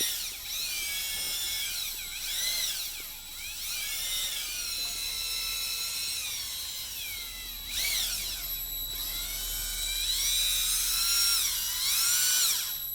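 An electric screwdriver spins a flexible dryer-vent cleaning rod and brush. Its motor gives a high whine that rises and falls in pitch as the speed varies, and it slows briefly about eight seconds in.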